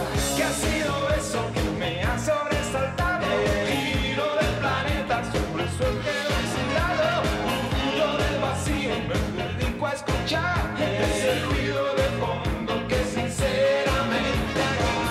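A male lead vocalist singing over a live pop-rock band with electric guitars and drums playing a steady beat.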